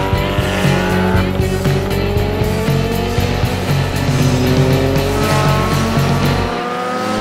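Several motorcycles riding past one after another, engines rising in pitch as they pull away, over background music.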